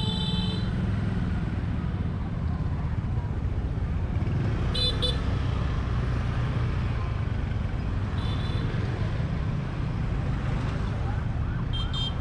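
Street traffic running steadily, with a few short horn beeps: a double toot about five seconds in, another near eight seconds and a double toot near the end.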